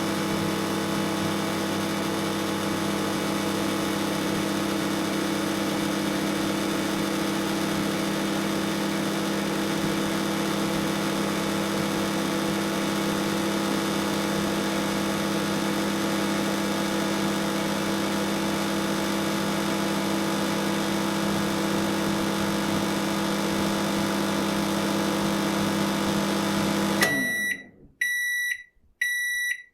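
Microwave oven running: a steady, even hum. About 27 seconds in it shuts off and the end-of-cycle beeper starts, short high beeps about once a second.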